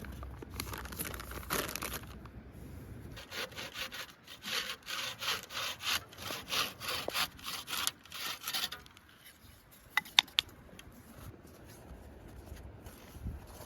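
Hand saw cutting wood with rhythmic back-and-forth strokes, about three a second, stopping near nine seconds in; two sharp clicks follow about a second later.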